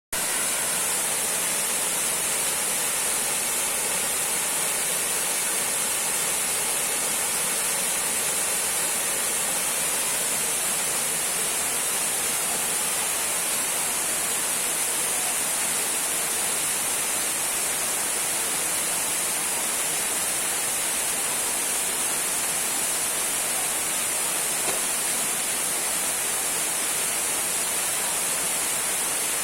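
Small waterfall trickling: a steady, even rush of falling water with a bright hiss.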